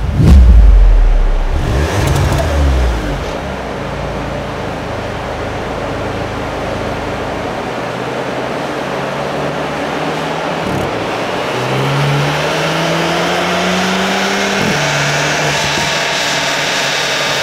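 A deep boom at the start, then the VW Polo GTI's turbocharged 2.0 TSI four-cylinder running through its REMUS exhaust on a dyno. Over a steady rushing noise its pitch rises evenly for about three seconds, then drops back.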